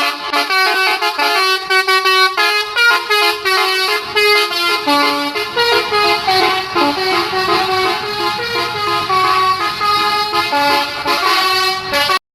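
Bus telolet horn, a set of air horns sounding in turn, playing a fast tune of stepping notes and cutting off suddenly near the end.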